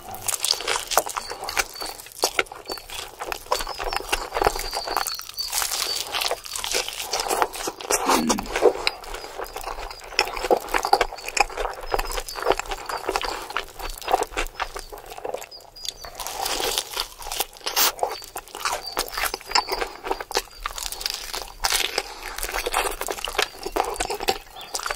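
Close-up eating sounds: a man chewing and smacking on meat and rice, with his hand squishing and mixing rice on a banana leaf, a dense crackly run of wet smacks and clicks.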